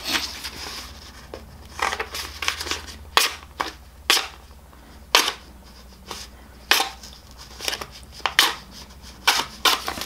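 A sheet of paper rustling and crackling in irregular short bursts as it is handled and a tiny Gerber GDC Zip Blade keychain knife is drawn against it. The blade scrapes rather than slicing cleanly: it is not sharp enough to cut the paper easily.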